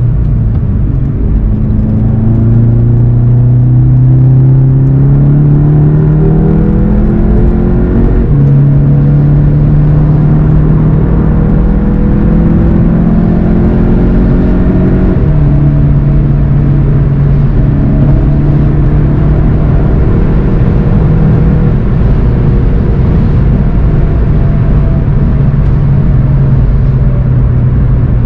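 2019 VW Golf GTI TCR's turbocharged 2.0-litre four-cylinder under hard acceleration. The revs climb and drop with DSG upshifts about 8 and 15 seconds in, then hold at speed and ease off near the end.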